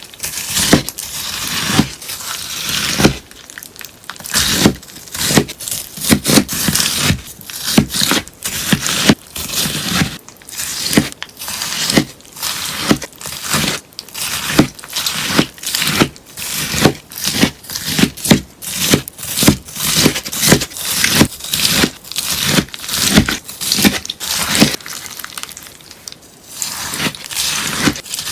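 A sponge being cut again and again, each stroke a crisp, crunchy slice, about two a second, easing off briefly near the end.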